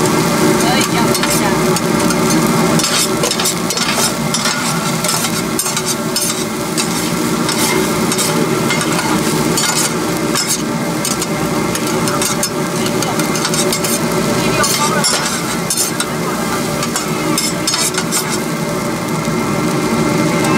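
A large batch of pork fried rice sizzling in a wok while a spatula stirs and tosses it, with frequent irregular scrapes and clinks against the pan.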